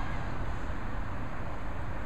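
Road traffic noise: a steady low rumble with a hiss from cars on the road, without any single pass-by standing out.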